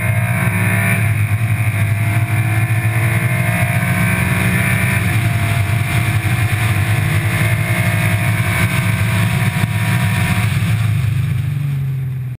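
Car engine running hard at track speed under steady load, mixed with road and wind noise. Its pitch drifts only a little, and the sound fades out at the very end.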